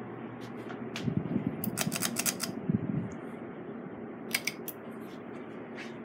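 PCI spinner ceiling fan running with a steady whoosh of air and motor hum. About one to three seconds in comes a cluster of sharp clicks and rattles with a low knock, and a few more clicks about four and a half seconds in, as the fan's light kit is switched on by its pull chain.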